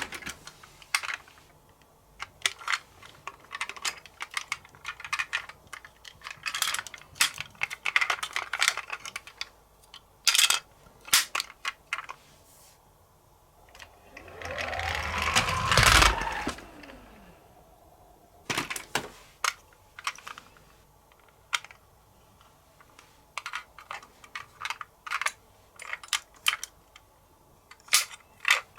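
Toy minicars being handled: a run of light plastic clicks and clacks, and about halfway through a few seconds of rolling rumble as a car runs down a slope.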